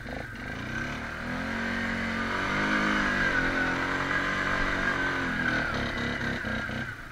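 ATV engine running along a dirt trail, its pitch rising over the first couple of seconds, holding, then falling away after about five and a half seconds as the throttle eases off.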